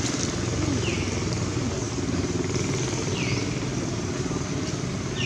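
Steady engine hum from a motor vehicle running nearby. A short, high call that falls in pitch repeats about every two seconds over it.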